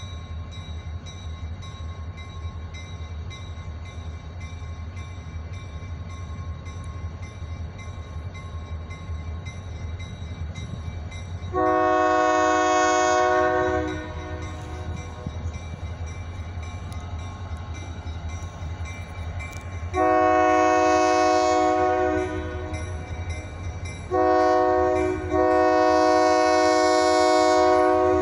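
Diesel freight locomotive's multi-chime air horn sounding the grade-crossing signal, long, long, short, long, over the low rumble of the approaching train. The horn starts about a third of the way in.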